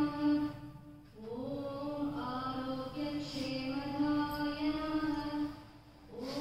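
Devotional chant sung over music: long phrases held on a steady note, each opening with a short upward slide, with brief breaks about a second in and again near the end.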